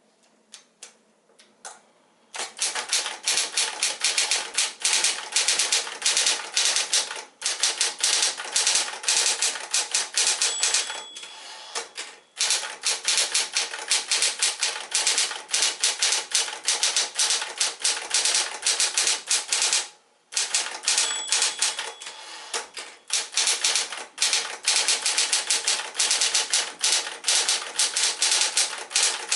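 Smith-Corona Electra 120 electric typewriter typing: a quick run of key strikes over the steady hum of its motor, which is running smoothly on a newly replaced drive belt. The typing starts about two seconds in and stops briefly a few times, and a short ring sounds three times.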